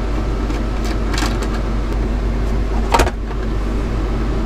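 A steady low machine hum, with light clicks and one sharper plastic knock about three seconds in as the screws of a Raymarine ACU autopilot control unit are undone and its plastic cover is lifted off.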